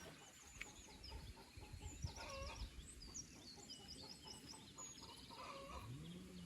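Faint farmyard birdsong: small birds chirping in quick runs of high notes, with a hen clucking now and then.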